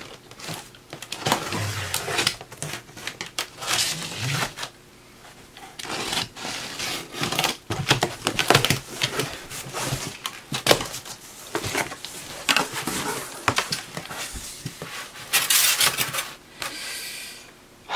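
Cardboard box being opened with a utility knife: the blade scraping through packing tape, tape and cardboard flaps being torn and pulled apart, with rustling and knocks. There is a longer, louder tearing rustle near the end.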